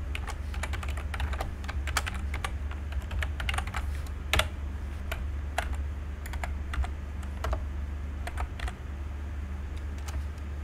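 Typing on a computer keyboard: quick, irregular keystrokes, with a steady low electrical hum underneath.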